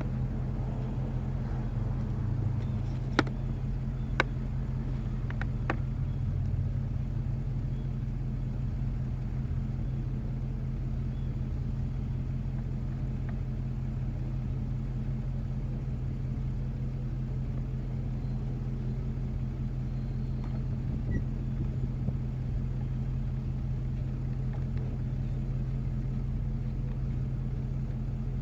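A steady low engine-like drone, like an idling vehicle, runs throughout. A few sharp metallic clicks come about three to five seconds in as screws are worked on with a hand tool.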